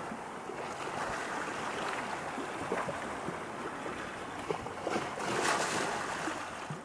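Sea water washing and lapping against rock and harbour wall, a steady hiss with small irregular splashes that swells about five seconds in.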